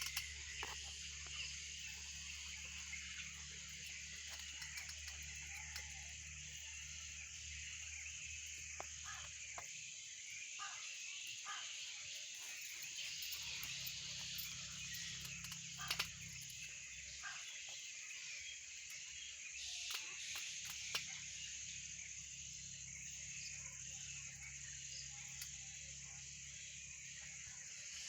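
Forest ambience: a steady high-pitched insect chorus with scattered bird calls and chirps through it, and a faint low hum that drops out for a few seconds in the middle.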